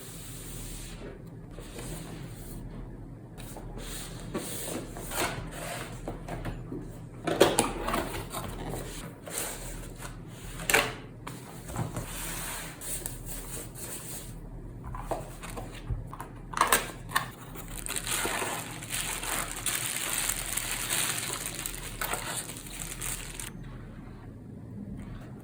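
Irregular knocks, clicks and rustling of things being handled, with a stretch of steady hiss from about two-thirds of the way in, over a low steady hum.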